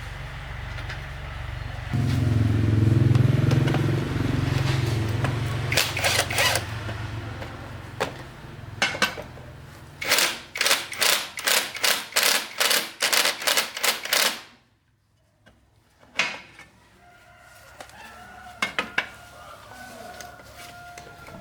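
A low machine hum that grows louder for a couple of seconds, followed by scattered knocks and then a quick run of about a dozen evenly spaced sharp strikes, two to three a second, that stops suddenly.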